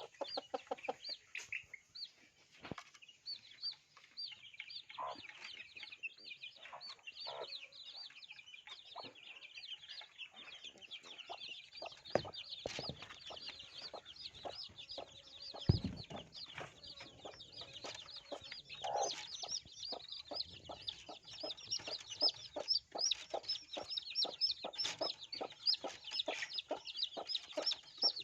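A brood of baby chicks peeping constantly, in a dense stream of short, high-pitched calls. Many quick taps run under the peeping in the second half, with two louder knocks about twelve and sixteen seconds in.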